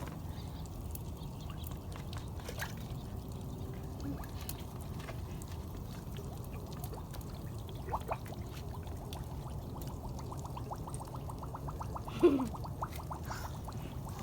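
Liquid pouring and trickling into a bottle, with scattered light clicks and a quick run of ticks in the last few seconds. A short, sharp sound with a falling pitch, the loudest moment, comes about twelve seconds in.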